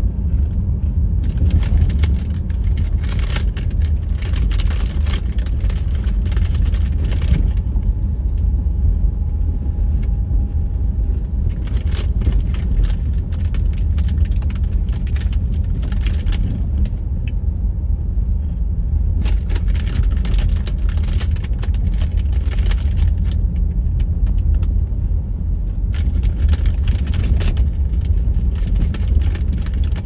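Car cabin sound while driving on a snow-covered road: a steady low rumble of engine and tyres, with washes of hiss that come and go every few seconds.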